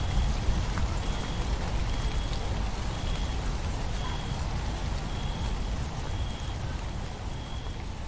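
Crickets trilling high and steadily, with a chirp about once a second, over an even hiss of rain and a low thunder rumble dying away. The whole mix slowly grows quieter.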